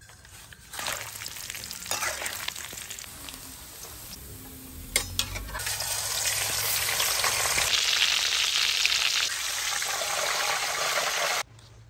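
Pieces of pig intestine deep-frying in hot oil, sizzling. A sharp click comes about five seconds in, the sizzle gets louder soon after, and it cuts off suddenly near the end.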